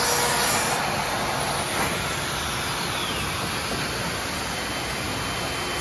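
CNC router running with its dust extraction: a steady rushing hiss with machine noise. A steady tone stops under a second in, and a faint falling whine follows a second or so later.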